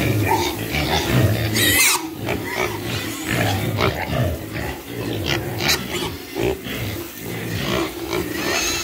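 A group of young Camborough, Large White and TN70 pigs grunting continually at close range, with a short high squeal about two seconds in and another near the end.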